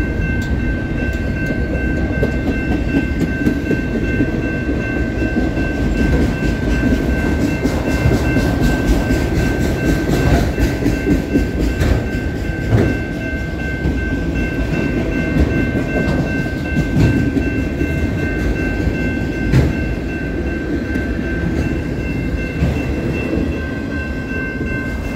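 Norfolk Southern freight cars, double-stack container cars and autoracks, rolling past close by: a steady rumble of wheels on rail with irregular clicks and clunks as wheels cross rail joints. A grade-crossing bell rings steadily at a high pitch over it.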